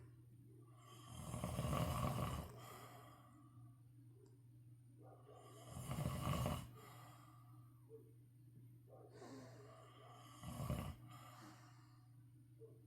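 A man and his daughter snoring in their sleep: three loud snores about four to five seconds apart, each lasting about a second, with softer snoring breaths in between.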